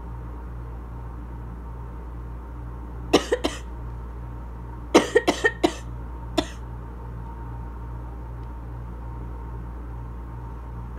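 Asthma cough: a fit of three short coughs about three seconds in, then a quicker run of five, and one last single cough, over a steady low hum.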